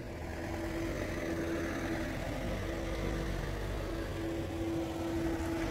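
A motor running steadily, holding one constant tone over a low rumble.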